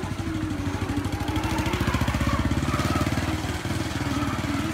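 Small motorbike engine running close by at low speed, growing louder toward the middle and easing off near the end.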